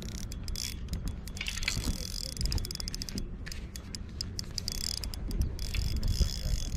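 Spinning reel being cranked to wind in a hooked salmon, its gears giving a fast mechanical clicking.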